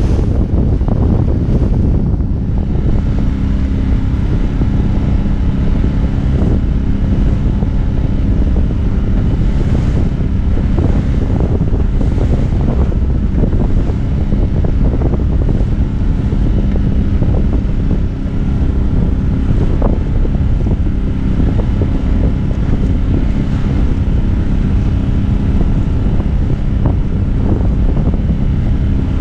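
Heavy wind buffeting the microphone over the steady drone of a sailboat's auxiliary motor, with waves splashing against the hull as the boat motors through rough chop.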